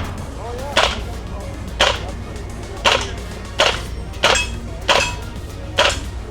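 Elite Force gas blowback UMP 45 airsoft gun, green gas powered, firing single shots: seven sharp cracks with the bolt cycling, about one a second at uneven intervals.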